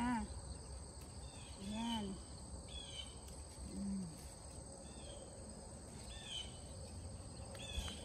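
Garden ambience: insects keep up a steady high-pitched trill while a bird gives short down-slurred chirps about every second and a half. A sharp click comes near the end.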